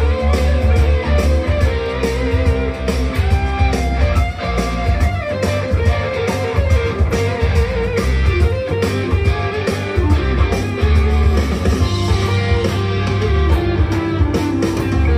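Electric guitar lead played on a Firefly FFLG SG-copy with two humbuckers, through an amplifier, over a blues-rock backing track with drums and bass.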